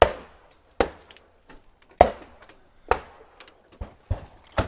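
Break-action shotgun being handled and loaded between pairs: a series of about seven sharp clicks and clacks, the loudest about two seconds in and near the end.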